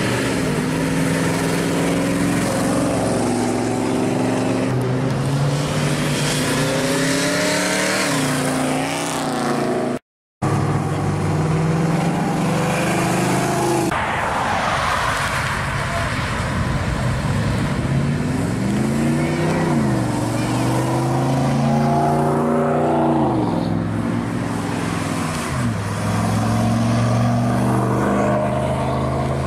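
Engines of classic Chevrolets — a first-generation Camaro, a lowered 1990s Chevrolet pickup, then a 1950s Chevrolet pickup — revving and accelerating as each drives past, the pitch climbing and dropping with each gear change. A brief dropout to silence about ten seconds in.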